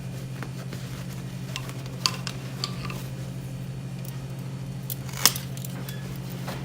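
Scattered sharp clicks and small handling noises of electrical wire being cut and worked for outlet pigtails, two clicks louder than the rest, about 2 seconds in and near 5 seconds, over a steady low hum.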